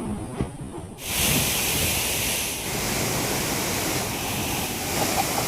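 Waterfall plunging in monsoon flow, a steady rush of falling water that turns louder and fuller about a second in.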